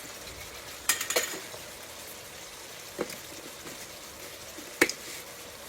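Chicken frying in olive oil and butter in a pan, a steady sizzle, with a few sharp clicks of a metal fork against the pan.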